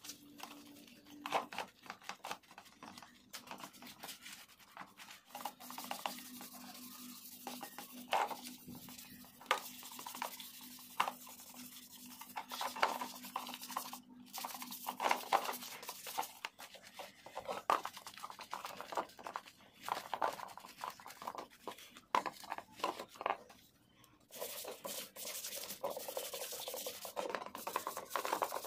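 Irregular light clicks, taps and scraping of small metal parts and hand tools being handled during motorcycle engine work.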